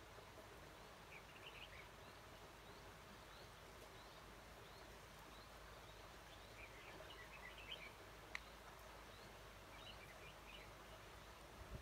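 Faint bird calls: three short bursts of chirping notes over a quiet background hiss, with a single sharp click about eight seconds in.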